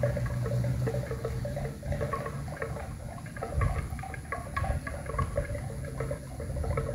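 Bells hung around water buffaloes' necks clanking in an irregular jumble of overlapping tones as the animals move. A low steady hum sits underneath for the first two seconds or so.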